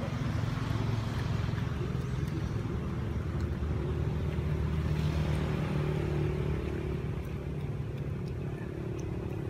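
A motor vehicle engine running steadily with a low hum, a little stronger around the middle and easing slightly after about six and a half seconds.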